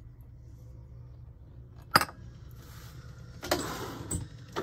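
A small ceramic bowl set down on a countertop with one sharp clink about two seconds in, followed by softer knocks and rustling of kitchen handling over a low steady hum.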